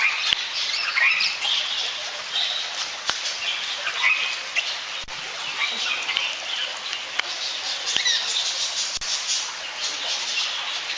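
A flock of small colourful birds chirping and chattering without pause, many short high calls overlapping one another.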